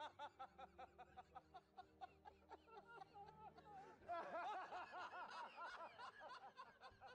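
Faint laughter of onlookers, quick repeated giggling syllables, swelling into a louder, higher burst of laughing about four seconds in.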